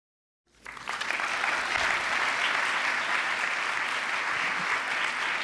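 Audience applauding, starting abruptly about half a second in and holding steady as a dense clapping.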